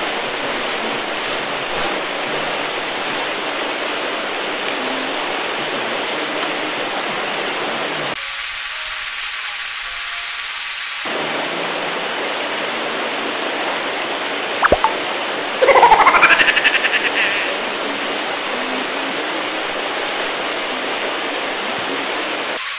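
Steady rushing and splashing of water from the fishing pond's aerators churning the surface. About two-thirds of the way through there is a short, high squeal that rises and falls.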